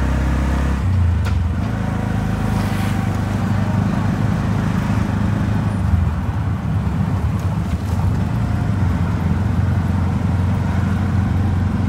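Engine of a three-wheeled auto-rickshaw running at road speed, heard from inside its open-sided cab, with a low steady drone that rises in pitch about a second in and dips briefly around six seconds as it changes speed. Road and traffic noise come through around it.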